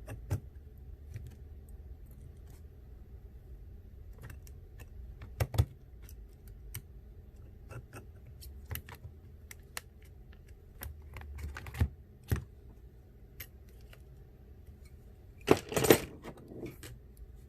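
Light metallic clicks and taps of small repair tools and tiny screws being handled on a phone, irregular, with a louder rattling cluster near the end.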